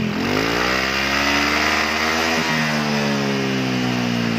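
Yamaha NMAX 2020 scooter's single-cylinder engine breathing through an aluminium SKR racing silencer with no dB killer fitted. It is revved up once over about two seconds, then eases slowly back down.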